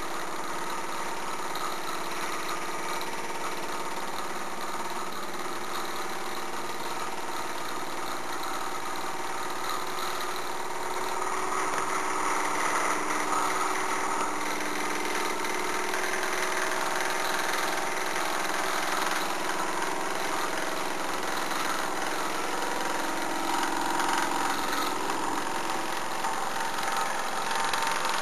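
Mamod SE3 twin-cylinder superheated toy steam engine running steadily without a break, growing a little louder partway through.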